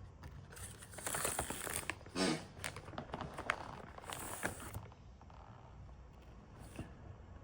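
Snack packet being crinkled and handled, a run of rustling with sharp crackles that stops about five seconds in.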